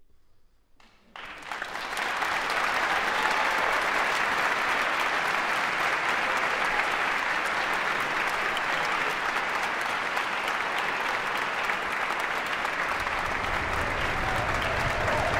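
A second of near silence, then a large audience bursts into sustained applause, with cheers starting up over the clapping near the end.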